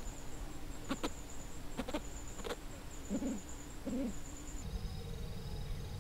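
Two short, low calls less than a second apart, like a bird's, over a high, steady pulsing chirr, with a few sharp clicks before them. Near the end the chirr stops and a low steady hum with faint high tones takes over.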